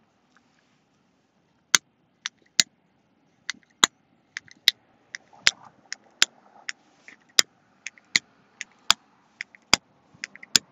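A run of sharp, irregular clicks and taps that come faster in the second half, over a faint low hum of distant traffic.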